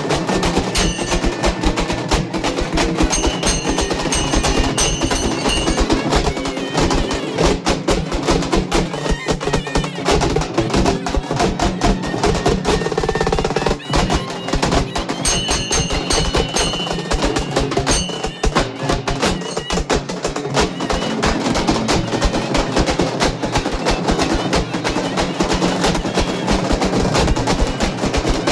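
A group of halgi frame drums played with sticks in a fast, dense, unbroken rhythm, with a brief dip in loudness about halfway through.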